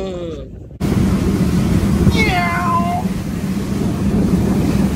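A 47-foot Freeman boat with quad 450 outboards running underway at sea, heard as steady wind buffeting the microphone over a low hum. It starts abruptly about a second in, just after a falling voice-like call fades out. About two seconds in, a short high cry rises over the noise for under a second.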